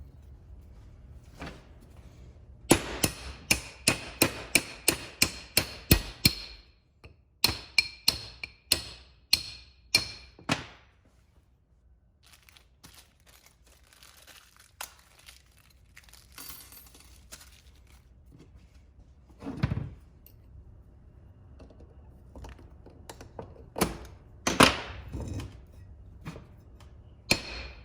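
A hammer tapping on metal in two quick runs of sharp knocks, about three a second, each with a short metallic ring, then a few scattered knocks later on. The taps seat the U-joint bearing caps into the CV joint's H-yoke.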